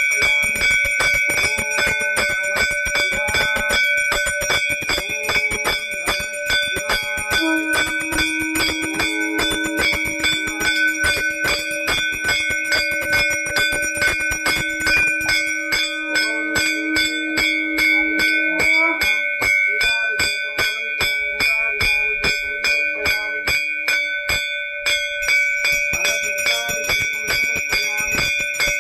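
Puja bell rung rapidly and without a break, each strike blending into a continuous metallic ringing. A lower steady tone joins it for about ten seconds, from roughly a quarter of the way in.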